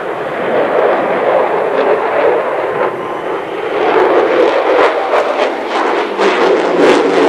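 Jet noise from a Grumman F-14 Tomcat's twin engines as it flies past: a loud, steady rushing noise that turns rough and crackling from about four seconds in.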